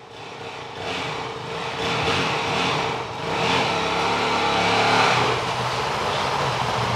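Honda CRF450L dirt bike's single-cylinder four-stroke engine running as the bike rides in, growing louder over the first couple of seconds as it approaches and then staying loud, its pitch rising and falling with the throttle.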